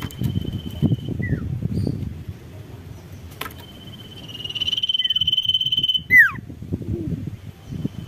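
Sirtu songbird singing: a sustained, high, thin trilled note held for a couple of seconds, with short falling slurs, then a loud, fast-falling whistled note about six seconds in. Low rumbling noise underneath.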